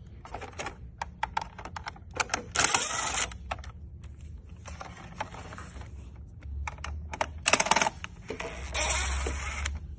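DeWalt cordless drill-driver backing out the screws that hold a plastic air-vent assembly, in several short runs, with plastic clicks and rattles between them.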